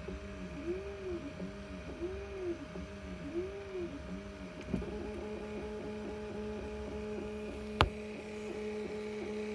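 Z-axis stepper motor running, its whine rising and falling in quick repeated sweeps, then about halfway through settling into a steady hum with regular light ticks. A single sharp thud a little past two-thirds of the way through is the strange noise the Z stepper is making.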